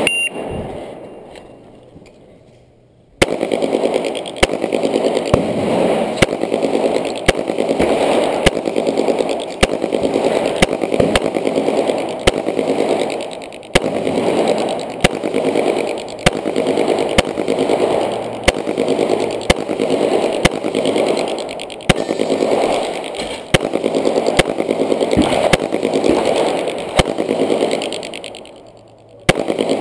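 Glock 21 pistol firing .45 ACP in rapid strings during a timed course of fire, a shot or two a second. Each shot rings out and decays before the next. The strings break briefly a few times, and the shooting stops near the end.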